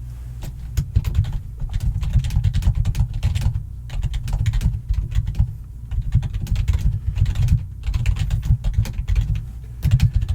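Fast typing on a computer keyboard: quick runs of keystrokes broken by a few brief pauses, each key with a low thud.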